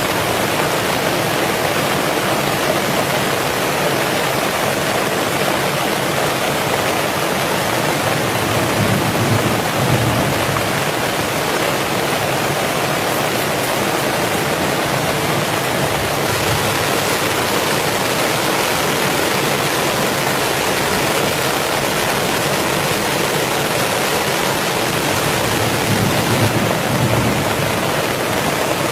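Heavy rain falling steadily, a dense even hiss, swelling a little deeper twice.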